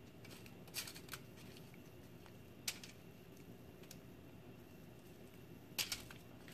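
A handful of short, light scrapes and clicks as a red plastic utensil pushes roasted red onion off a sheet of aluminium foil onto a plate, the loudest near the end, over a faint low room hum.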